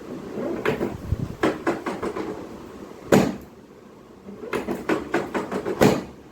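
A run of quick knocks and clacks in two flurries, with a single louder knock about three seconds in and another near the end.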